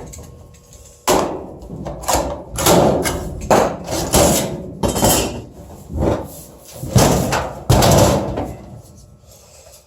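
Drive cleats on a sheet-metal duct boot being bent over, a run of about nine sharp metal knocks roughly a second apart.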